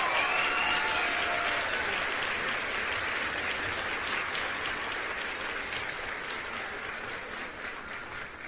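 Crowd applause: dense clapping that slowly fades out.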